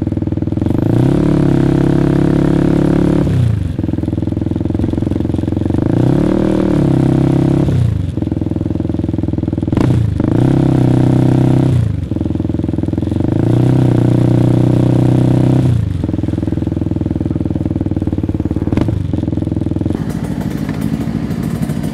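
Sport motorcycle engine revving hard while ridden, its pitch climbing and falling again and again with short sharp breaks between, settling to a steadier, lower note near the end.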